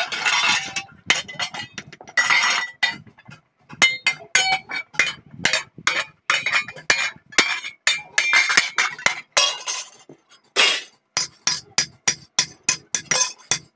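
Hand hammer striking a thin steel sheet on a steel anvil block: a fast, irregular run of sharp metallic clinks and clanks, some ringing briefly, as the sheet is beaten and folded.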